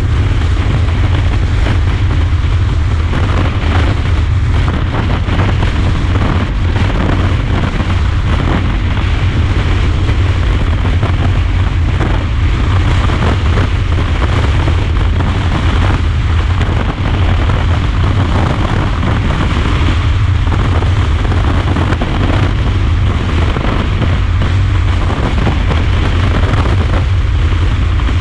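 Heavy wind buffeting and rushing over a GoPro action camera's microphone on a motorcycle riding at road speed in a strong crosswind, a loud, steady, deep rumble, with the Zanella ZR200's 200cc engine running underneath.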